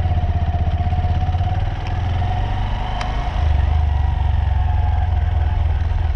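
Honda Monkey's small single-cylinder four-stroke motorcycle engine running steadily, easing off slightly about two seconds in and picking up again about halfway through, with a single short click about three seconds in.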